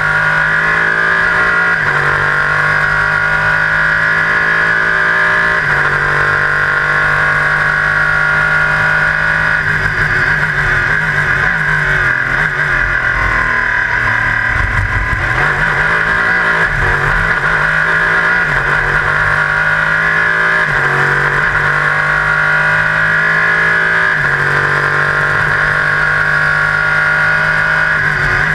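LMP3 prototype race car heard from inside the cockpit at speed: the engine runs hard with a step in pitch every few seconds as it shifts gear, drops in pitch through a slowdown around the middle, then pulls up through the gears again.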